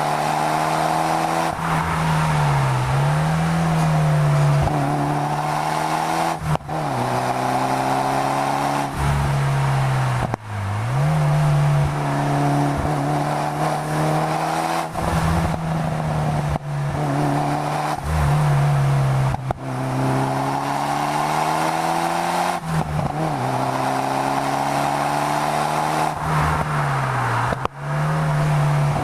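Straight-piped 1998 Mitsubishi Lancer Evolution V's turbocharged four-cylinder driven hard, its exhaust note climbing and falling again and again. Brief sharp breaks in the sound every few seconds mark the shifts and lifts.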